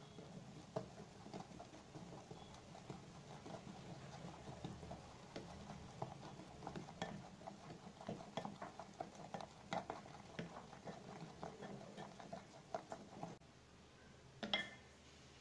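Silicone spatula stirring thick semolina cake batter in a glass bowl: a continuous wet stirring with many small taps against the glass, stopping about 13 seconds in. A single short knock follows near the end, the loudest sound.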